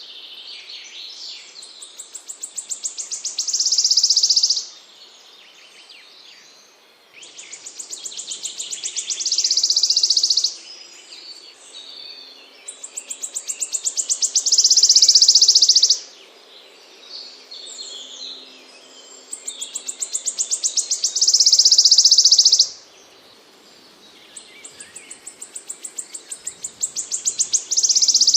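A small songbird singing the same phrase over and over, about five times: a run of high notes that speeds up and builds into a loud, rapid high trill, each phrase lasting a few seconds with a short pause between.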